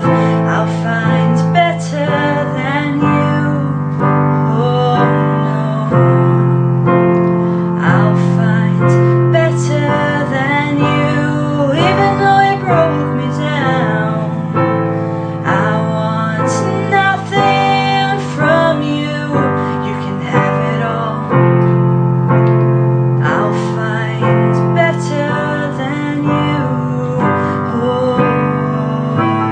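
Background music: a song led by piano, in a stretch with no sung words.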